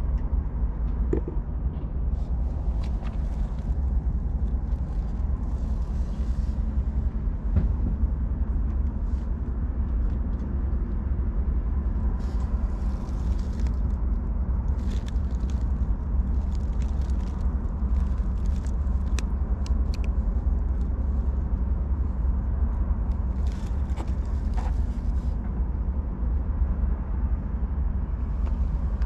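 A steady low rumble, with faint scattered clicks and brief rustles over it.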